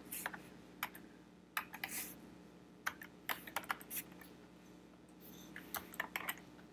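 Typing on a computer keyboard: faint key clicks coming singly and in short quick runs, with pauses between.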